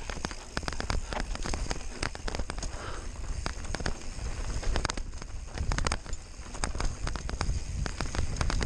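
Giant Stance 1 full-suspension mountain bike rattling over a rough, rocky dirt trail: a dense run of irregular clicks and knocks from the bike and tyres, over a steady low rumble of wind on the microphone.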